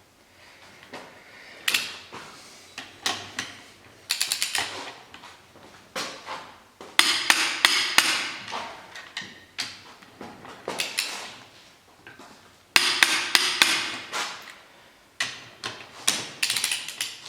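Torque wrench on the cylinder head bolts of a Mitsubishi 6G72 V6, clicking and ratcheting as each bolt is pulled up to the final 108 Nm stage. Sharp metallic clicks come in groups every second or two, some in quick runs of several clicks.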